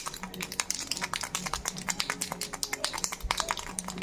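Toy ball rattle shaken, giving a rapid, irregular stream of sharp clicks.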